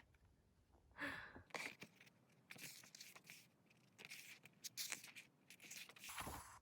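Faint rustling of glossy paper as pages of an album photobook are handled and turned, in several short bursts.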